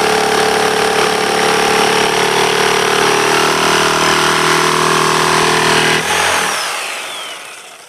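Power saw running steadily, then switched off about six seconds in, its whine falling in pitch as the motor winds down.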